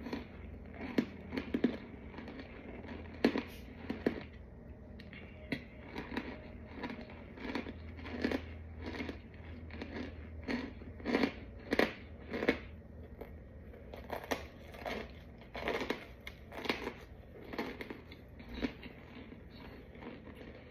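Chunks of packed white powder being crunched, a string of crisp, crumbly crunches coming irregularly about one or two a second.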